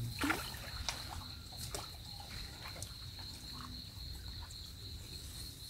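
Outdoor ambience: a steady high-pitched insect drone over a low rumble, with scattered faint clicks and knocks.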